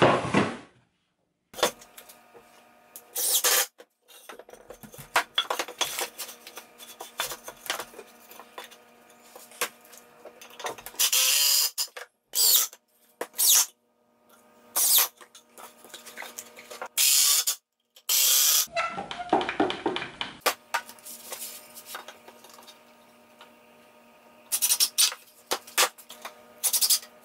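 A cordless drill whirring in short spurts as it drills holes and drives screws into wooden boards, mixed with the knock and scrape of the boards being handled. The sounds come in short bursts that stop abruptly many times.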